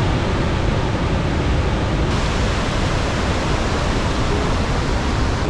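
Iguazu Falls: the loud, steady rushing of a huge volume of falling water.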